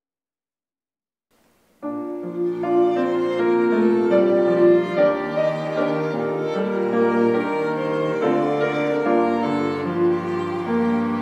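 Silence, then about two seconds in a small chamber ensemble of violin, cellos and piano, with a flute, starts playing a slow, sustained instrumental opening to a choir anthem.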